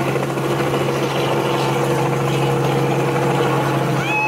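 Light helicopter flying low overhead: a steady drone of its engine and rotor. A high, steady whistle-like tone starts right at the end.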